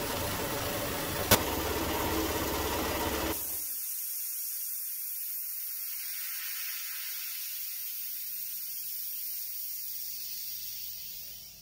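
Campbell Hausfeld air compressor running as it fills its tank, with a single sharp click about a second in. After about three seconds the motor sound stops abruptly and compressed air hisses out steadily, fading slowly, as pressure is let off at shutoff and the filter's automatic drain vents.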